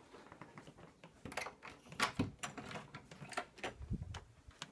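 Irregular clicks and light knocks of movement, with a couple of heavier low thumps about two seconds in and again near four seconds.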